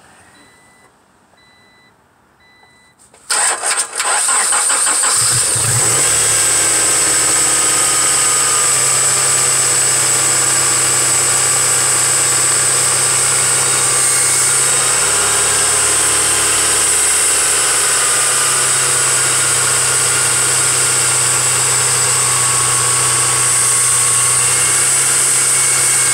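A 1995 Honda Prelude's four-cylinder engine starts about three seconds in, catching after a brief crank, then idles steadily.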